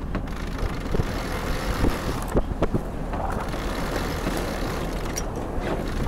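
Steady wind noise on the microphone aboard a sailing yacht under way, with a low rumble and occasional buffets.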